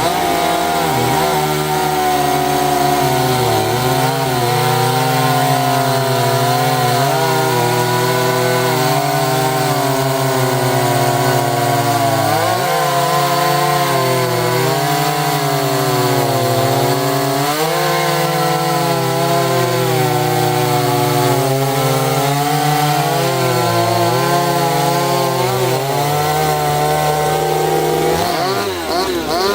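Two-stroke gas chainsaw running under load while cutting wood. The engine pitch sags several times as the chain bites, then picks back up. Near the end the pitch shifts and the loudness dips briefly.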